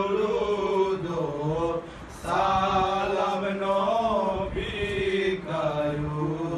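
Three men chanting a Bengali jari/salam devotional song together in drawn-out melodic phrases, with a short break for breath about two seconds in.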